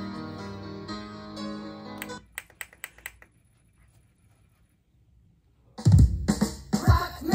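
Music with guitar playing from a CD through a Sony CMT-CP100 micro hi-fi's speakers cuts off about two seconds in. A few sharp clicks follow as the track is skipped, then a few seconds of near silence. Near the end a new track starts, much louder, with heavy drum hits.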